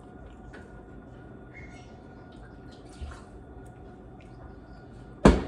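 Quiet wet chewing and mouth sounds of someone eating a taco, with scattered soft clicks. Near the end there is one sudden loud knock.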